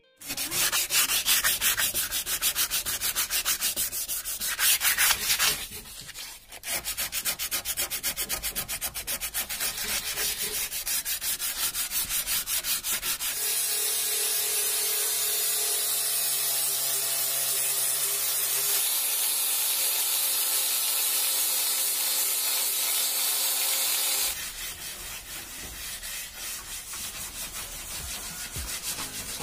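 Sandpaper rubbed over the Hindustan Ambassador's steel body panels and body-filler patches in rapid back-and-forth strokes while the body is prepared for paint. For a long stretch in the middle the rubbing turns steady, with a low hum under it.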